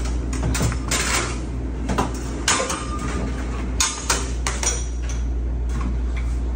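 Metal cookware and utensils clattering on a diner grill line: spatulas and pans knocking with a scatter of sharp clanks, over a steady low hum.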